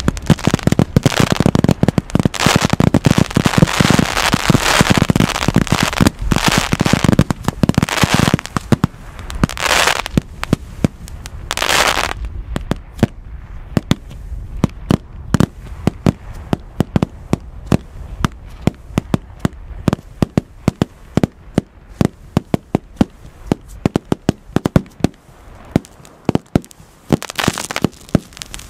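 Fireworks going off: a dense barrage of bangs and crackling for about the first twelve seconds, then thinning out to scattered sharp cracks and pops.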